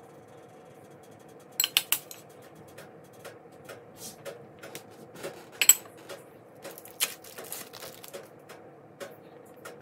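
Steel spoon scraping and tapping while garlic-butter paste is spread on a slice of bread on a plastic cutting board: a run of light clicks and scrapes, with three quick sharper clicks near the start and the loudest click a little past halfway.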